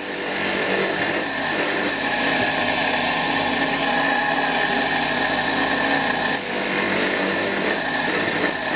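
Tool and cutter grinder's wheel running with a steady whine while the point of a twist drill, held in a jig, is ground against the side of the wheel to put more relief angle on it. The grinding hiss swells and eases a few times as the drill works across the wheel.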